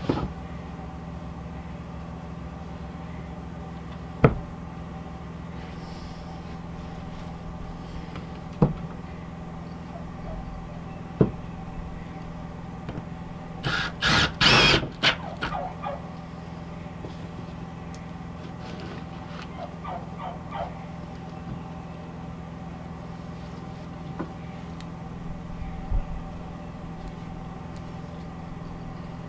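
Hand work on a metal stovepipe: single sharp knocks every few seconds, and a louder burst of rattling and scraping a little past the middle, over a steady low hum.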